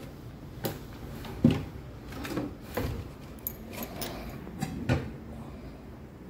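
Irregular knocks and clunks of kitchen things being handled, the loudest about one and a half seconds in.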